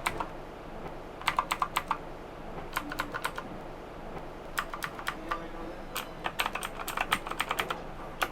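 Typing on a Fantech MK885 Optimax mechanical keyboard with optical blue switches: sharp clicky keystrokes in quick runs of several keys, with short pauses between the runs.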